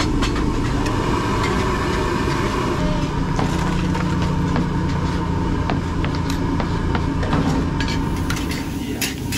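Street-stall noise: crackling and clicking with a steady low engine hum through the middle of the stretch. Youtiao sizzle in a wok of hot oil at the start.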